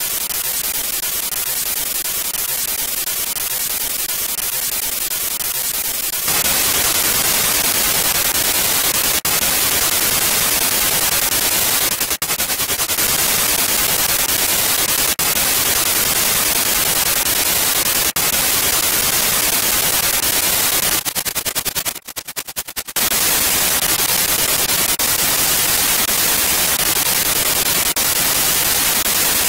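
Spirit box app sweeping through FM radio frequencies: continuous radio static hiss, louder and brighter from about six seconds in, with a short stretch of rapid choppy cutting in and out about three-quarters of the way through.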